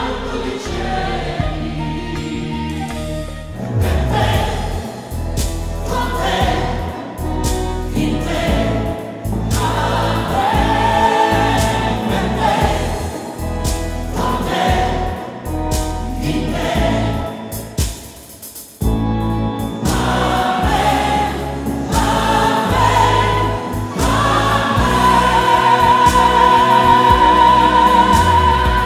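A mixed church choir sings a liturgical hymn with a female solo voice, accompanied by electronic keyboard and flute. The music dips briefly about two-thirds of the way through, then comes back louder, with a long wavering high note near the end.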